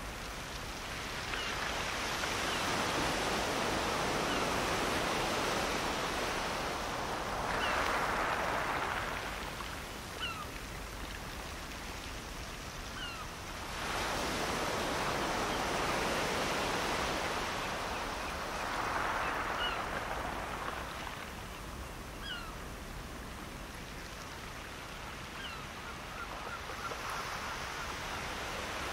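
Small waves breaking and washing up a flat sand beach, the surf swelling and ebbing in two long surges, with a sharp rise about fourteen seconds in. Faint short bird calls chirp here and there throughout.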